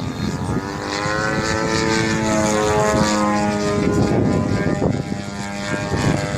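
A Yak 54 RC aerobatic model airplane's 120 cc engine and propeller buzzing in flight. The engine note climbs in pitch about half a second in, holds, then sinks and fades after about five seconds as the plane flies past, over a steady rumble of wind on the microphone.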